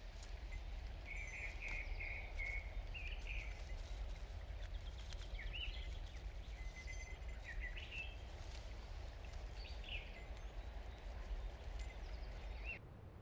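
Quiet outdoor ambience: small birds chirping intermittently over a faint, steady low rumble that cuts off near the end.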